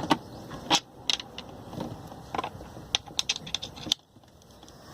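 Irregular clicks and knocks of metal tools and parts being handled, stopping about four seconds in.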